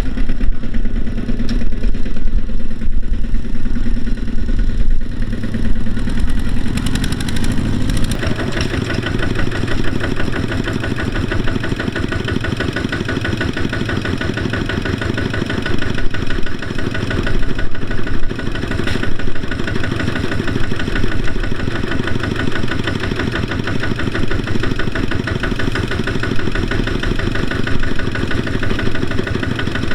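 Diesel farm engine running with a rapid, even beat, picking up speed and load about eight seconds in.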